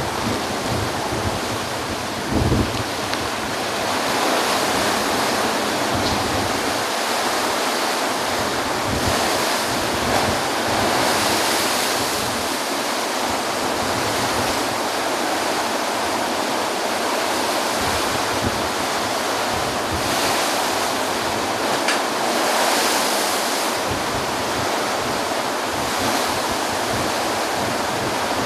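Heavy storm surf from a tropical storm breaking on a beach: a steady rush of waves with swells as larger breakers come in. Wind buffets the microphone with low thumps, mostly in the first few seconds.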